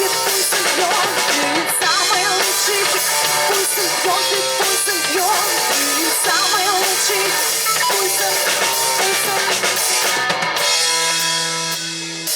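Live rock band playing an instrumental passage: drum kit keeping the beat under bass and a wavering lead melody line. Near the end the band lands on a held chord.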